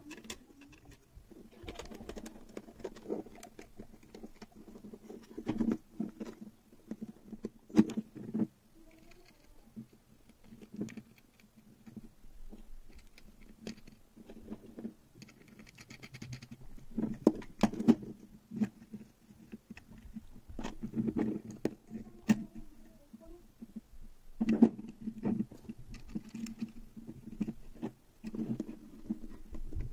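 Handling noise from fitting a 3D-printed plastic case around an electronics board: irregular plastic clicks, taps and rustles as parts are pushed together and an antenna connector is threaded into place.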